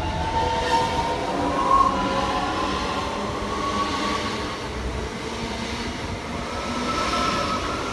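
Great Northern electric multiple unit moving through the station, its traction motors whining in several tones that slowly rise in pitch as it gathers speed, over a low rumble of wheels on rail.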